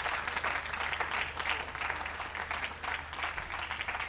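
Audience applauding: many hands clapping at once in a steady, dense patter.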